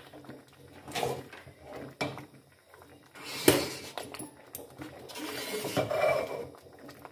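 A metal spoon stirring thick lentil-and-chicken haleem in a steel pot: irregular wet swishing and scraping against the pot, with a sharper knock of the spoon on the pot about halfway through.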